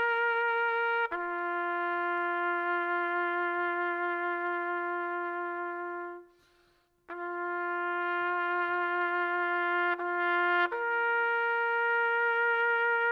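A solo trumpet playing slow, long-held notes, like a bugle call. A lower note is held for several seconds and breaks off for about a second. It sounds again, then steps up to a higher note that is held to the end.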